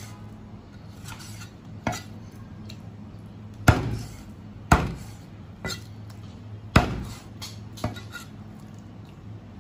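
A Chinese cleaver chopping bone-in chicken legs into pieces on a thick wooden chopping block: about six irregularly spaced chops, three of them hard blows. A faint steady hum runs underneath.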